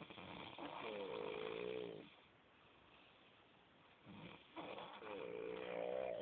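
A man snoring in his sleep: two long snores about four seconds apart, each starting as a breathy rush and turning into a wavering, pitched drone.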